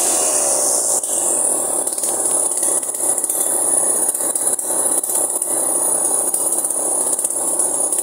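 Chainsaw running under load, cutting into a felled tree trunk, a steady loud noise with no letup.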